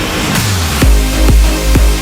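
Electronic dance music from a DJ mix. A hissing build-up and a falling sweep end just under a second in, and a heavy kick drum with deep bass drops in, a little over two beats a second.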